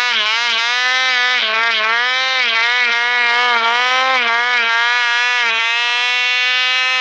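Snowmobile engine running hard at high revs, a steady buzzing note whose pitch dips and recovers again and again as the rider works the throttle.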